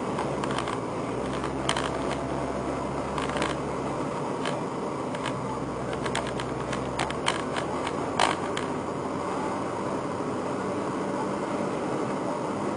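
Nissan GT-R R35 driving, with a steady engine and road hum and irregular sharp clicks and knocks: the abnormal noise that broke out from the rear of the car, cause unknown. A low drone in the hum drops away about seven seconds in.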